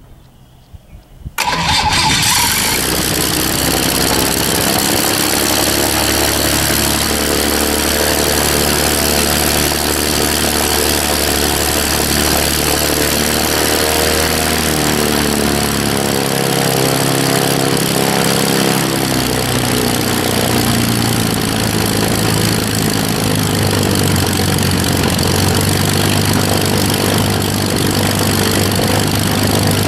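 Aircraft piston engine starting abruptly about a second and a half in and running steadily, driving a three-bladed carbon-fibre pusher propeller. Its speed shifts around the middle, then settles into a steady lower run.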